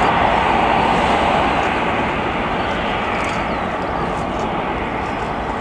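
Airbus A340-300's four CFM56 jet engines running at taxi power: a steady rushing hum that eases slightly after about two seconds.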